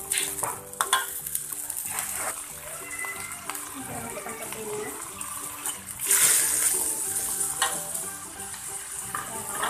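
Metal spatula scraping and clicking in a wok as tempe and green chillies are stir-fried in sizzling oil. About six seconds in, a louder sizzle swells up as petai beans are tipped into the hot oil, then settles.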